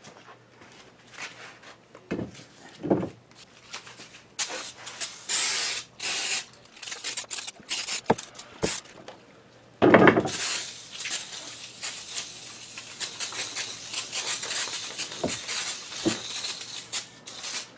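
Aerosol brake cleaner hissing as it is sprayed onto metal brackets to degrease them: a few short bursts, then a longer spray from about halfway in. There are some knocks as the parts are handled.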